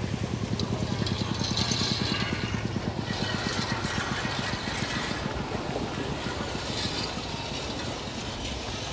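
A small engine running steadily with a fast, even putter, with a hiss that swells up a few times over it.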